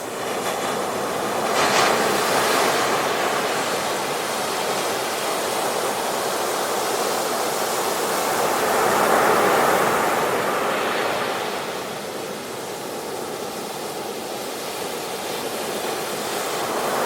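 Ocean surf: a steady wash of waves, swelling as waves break about two seconds in, again around the middle, and near the end.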